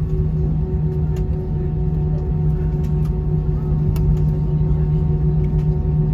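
Steady low hum and rumble inside the cabin of an Airbus A320 taxiing after landing, with a few faint light ticks over it.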